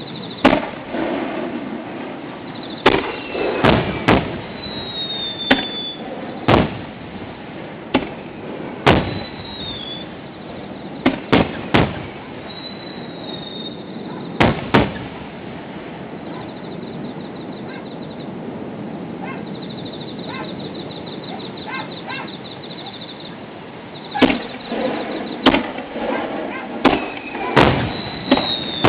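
Fireworks display: aerial shells bursting in a series of sharp booms at irregular intervals, some followed by crackling, with a few high whistles that glide up and down in pitch. The booms come thick at first, ease off for several seconds in the middle, then come thick again near the end.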